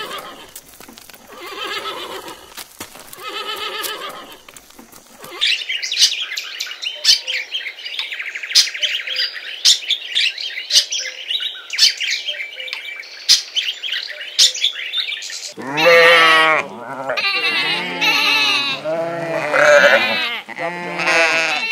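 Horses whinnying in three short calls. From about five seconds in, parrots chirp and chatter in a dense, high run of calls. From about fifteen seconds in, sheep bleat in several overlapping, wavering calls.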